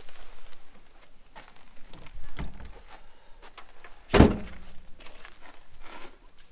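Jeep Wrangler's rear flip-up window glass being shut, with one loud thunk about four seconds in that rings briefly. A softer knock and a few light clicks come before it.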